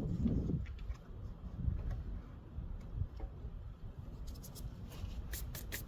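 Small handling noises of mower engine parts being worked on: a brief low rub at the start, scattered light knocks, then a run of sharp clicks from about four seconds in.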